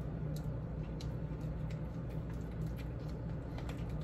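Hands mixing and rubbing seasoning into raw chicken breasts: scattered faint wet squishes and pats over a steady low hum.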